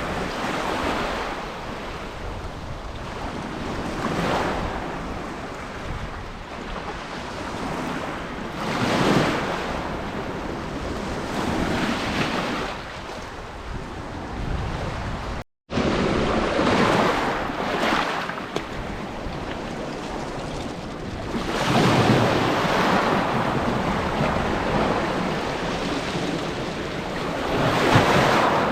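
Sea surf: waves breaking and washing up the shore in surges every few seconds, with wind buffeting the microphone. The sound cuts out for an instant about halfway through.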